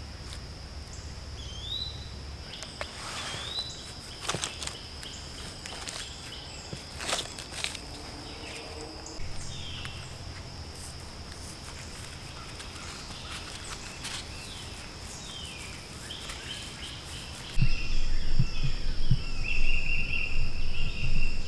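Summer woodland ambience: a steady high insect drone with a few short bird chirps and scattered sharp snaps and crackles of rotten punk wood and leaf litter. Near the end, wind buffets the microphone with a low rumble and a bird sings short repeated trills.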